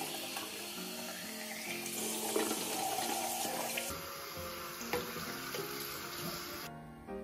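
Water running from a sink tap and splashing over a handheld vacuum's plastic dust bin as it is rinsed by hand. The water sound cuts off near the end.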